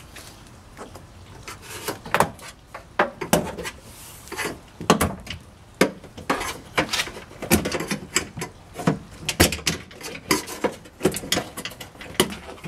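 Interior door panel of a 1956 Ford F100 being pried off its steel door: an irregular series of sharp clicks and knocks as the panel's little plastic rivets pop out of their holes and the panel bumps against the door.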